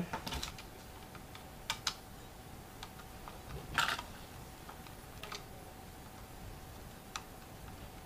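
Small scattered clicks and scrapes of a screwdriver turning the screw that fastens a plastic strain-relief clamp onto a Sonoff Basic smart switch's housing. The clicks come a second or so apart, the loudest a little under four seconds in.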